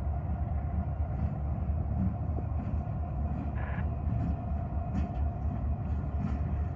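Canadian Pacific GP20C-ECO diesel locomotive running as it rolls slowly past at the head of a track evaluation train: a steady low rumble with a steady engine tone over it and a few faint ticks.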